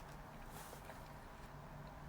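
Faint room tone: a steady low hum with a few soft ticks.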